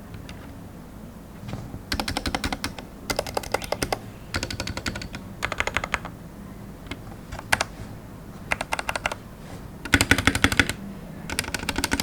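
Typing on a Royal Kludge RK61 mechanical keyboard with lubed RK Red linear switches and XDA-profile keycaps: rapid keystroke clatter in short bursts of about a second, with brief pauses between, the quickest and loudest run about ten seconds in.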